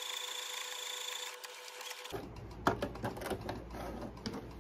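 Brother CS7000X sewing machine running a straight stitch at steady speed, stopping about two seconds in. Then come a few clicks and rustles as the fabric is handled at the machine.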